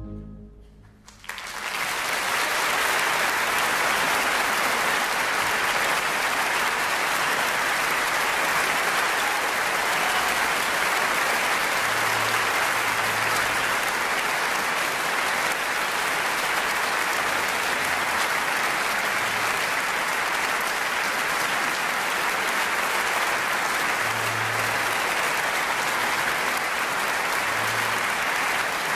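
The music's last note dies away. About a second in, a theatre audience breaks into steady applause that carries on without letup.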